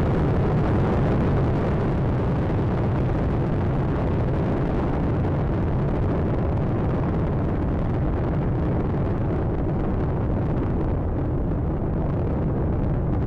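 Space Shuttle Atlantis's two solid rocket boosters and three main engines making a continuous deep rumble in the first seconds of ascent. The higher hiss thins out near the end.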